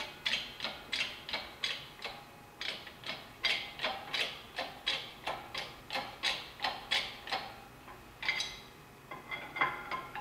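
Hand-pumped hydraulic shop press clicking with each stroke of its pump handle, about three clicks a second, with a brief pause shortly before the end, as a new bearing is pressed into a transfer-case planetary gear.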